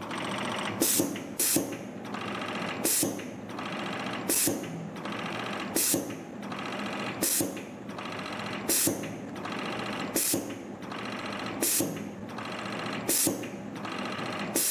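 YHM MF-603 CNC multi-forming machine running a spring-forming cycle: a steady motor buzz with a short sharp hiss repeating about every one and a half seconds, one cycle per spring.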